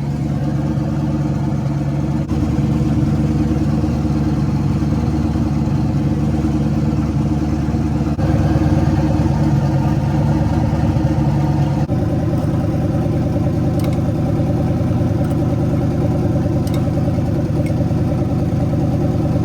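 The twin-turbo engine of a 1979 Ford Fairmont idling steadily on its first start, with no exhaust system fitted yet, ridiculously loud. The idle note shifts slightly about two seconds in and again about twelve seconds in.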